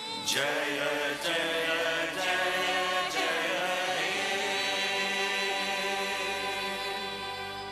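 Voices singing or chanting together over music, a new sung syllable starting about once a second for the first few seconds, then a long held chord.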